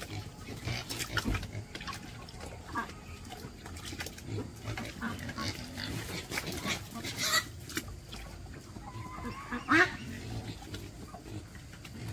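Scattered knocks and clatter with a few short animal calls, the loudest a brief call that rises in pitch near the end.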